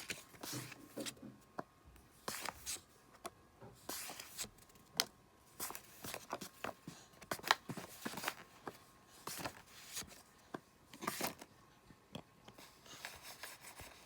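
Pokémon trading cards being handled and flipped through: irregular crisp snaps and rustles of card stock, one after another.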